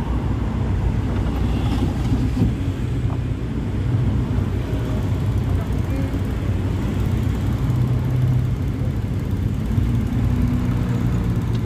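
Steady low hum of a running vehicle engine, with road noise.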